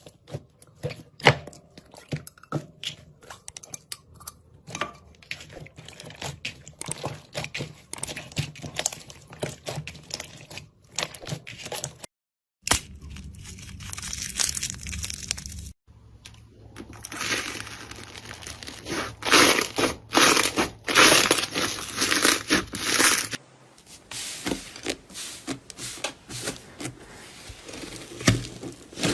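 Hands squeezing and stretching slime: dense, irregular crackling, crinkling and popping clicks, broken by a couple of brief silences.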